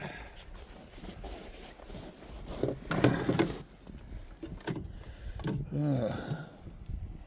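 A man grunting and groaning with effort twice while working on the snowblower, with a few sharp clicks and knocks of metal parts in between.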